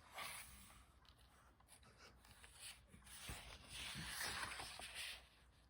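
Faint rustling of paper as a picture book's pages are handled and turned: a short rustle at the start, then a longer one from about three seconds in to just past five.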